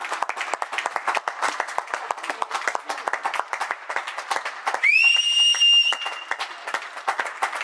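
Many people clapping and applauding, with a loud whistle that rises and then holds one pitch for about a second and a half near the middle.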